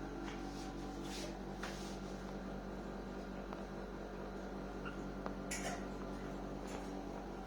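Steady electrical hum, with a few faint, brief rustles about a second in and again past the middle.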